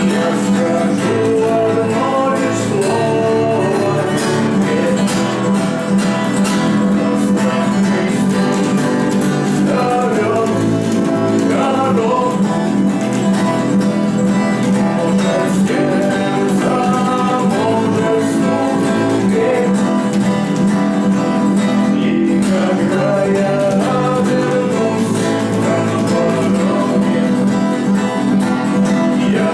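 Live acoustic guitar playing a rock song, strummed steadily, with a voice singing over it at times.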